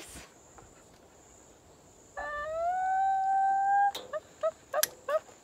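High-pitched laughter: one long, slightly rising whoop about two seconds in, then a run of short, high laughs.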